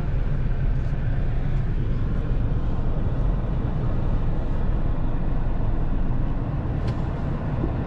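Car running, heard from inside the cabin: a steady low rumble, with a faint click about seven seconds in.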